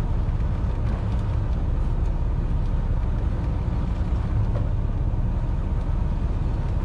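Steady low drone of a fishing boat's engine running.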